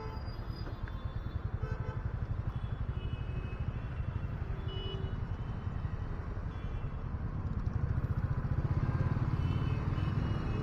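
Motorcycle engine running at low speed in slow traffic, with a rapid, even low pulse. It gets louder about eight seconds in as the bike pulls away.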